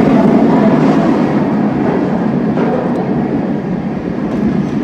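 Firebird steel roller coaster in full ride, heard from the front row: a steady, loud rush of wind on the phone's microphone mixed with the train's wheels rumbling along the track.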